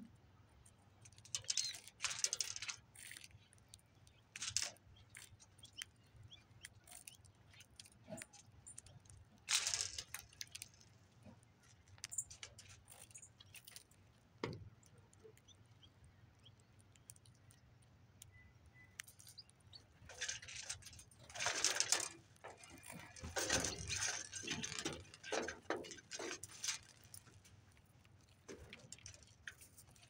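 Small birds (dark-eyed junco, American goldfinches, sparrows) pecking through a platform feeder of mixed seed and peanuts: irregular spells of rattling and clicking as the seed and shells are picked over and scattered, busiest about two-thirds of the way through.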